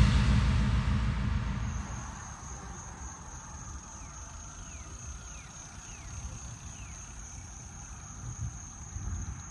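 The tail of electronic intro music fades out over the first couple of seconds, giving way to a steady high-pitched buzz of insects. A few faint short falling chirps sound midway.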